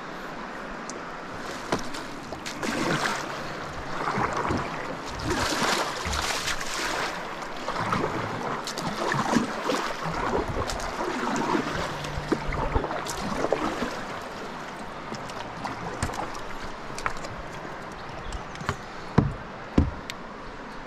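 Kayak paddle strokes splashing in river water, one swell of splashing every second or so through the first half, then quieter water moving past the hull as the kayak glides. Two short knocks come near the end.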